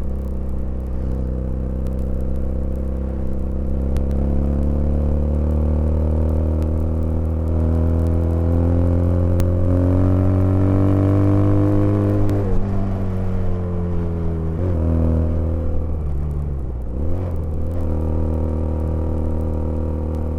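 Custom 320 cc inline two-cylinder motorcycle engine built from two Honda GL Pro engines, running. Its pitch climbs slowly for several seconds, falls back suddenly about halfway through, then dips briefly twice more.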